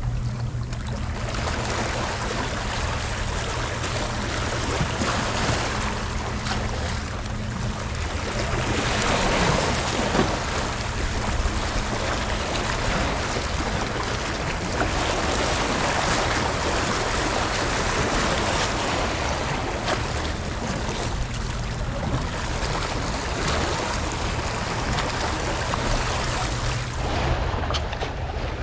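Sea waves washing at the shoreline, swelling and easing every few seconds, with wind buffeting the microphone and a steady low hum underneath.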